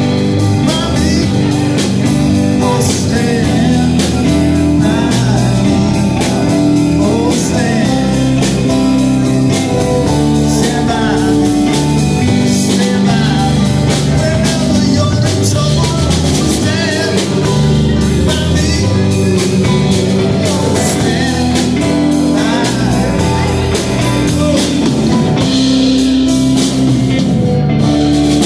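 Live blues-rock band playing: electric guitars, bass and keyboard over a drum kit keeping a steady beat.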